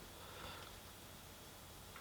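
Near silence: room tone, with one faint short sound about half a second in.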